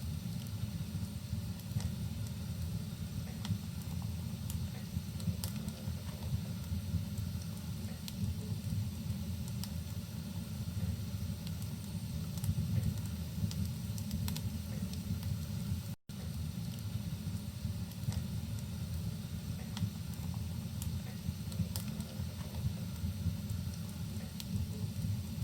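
Rain and a crackling wood fire: a steady low rush with scattered sharp crackles and pops. The sound drops out for an instant about two-thirds of the way through.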